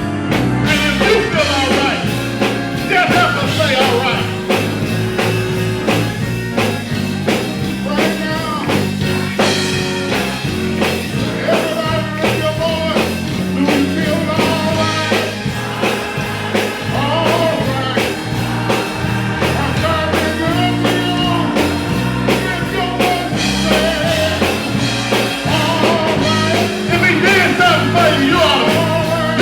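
Church band playing with a singer: held bass notes under a steady drum beat and a wavering sung melody.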